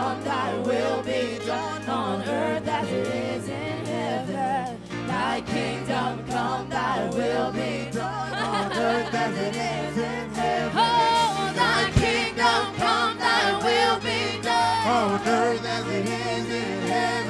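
Live worship band music: several voices singing over held low chords that change every few seconds, with drums.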